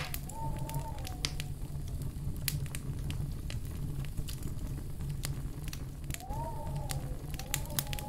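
Wood fire burning in a fireplace: a steady low rumble of flames with frequent sharp crackles and pops from the logs. A soft whistle-like tone rises and falls briefly near the start and twice more near the end.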